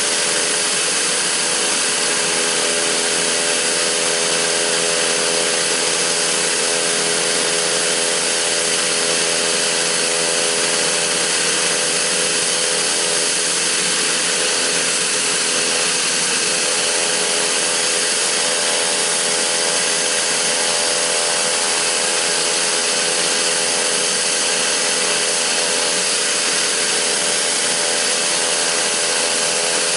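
Pilatus PC-12/47E's single Pratt & Whitney PT6A turboprop engine and propeller running at steady power: an even, continuous whine over a hiss.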